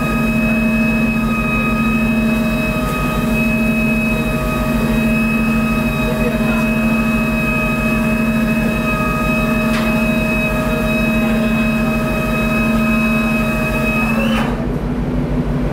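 Ship's deck machinery running steadily: a low, rapidly pulsing hum with a steady whine above it. Near the end the whine rises slightly and cuts off suddenly, while the hum carries on.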